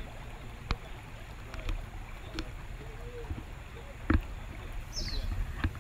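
Quiet river ambience: a low rumble with scattered light knocks and clicks, the loudest just past four seconds. A bird gives a short falling call near the end.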